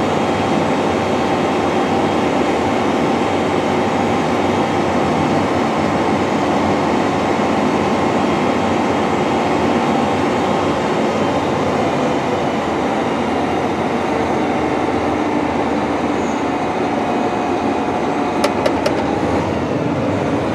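Steady mechanical drone heard inside the cab of a John Deere 9420R four-wheel-drive tractor pulling a grain cart through standing wheat, with a John Deere S790 combine harvesting close alongside. A few sharp clicks come near the end.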